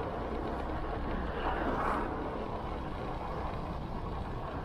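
Motorcycle riding at steady road speed: a low engine drone under a rush of wind and road noise, with a brief swell of noise about two seconds in.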